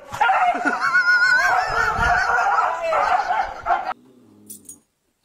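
Dog whining in high, wavering cries for nearly four seconds, cut off suddenly.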